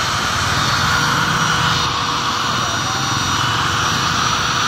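Makita 9500 angle grinder, its motor rewound for 220 V, running free with no disc fitted: a steady, even motor whine.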